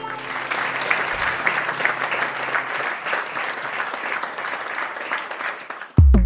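Recorded crowd applause, a dense patter of many hands clapping, that fades out about six seconds in. A loud deep drum thump lands just before the end.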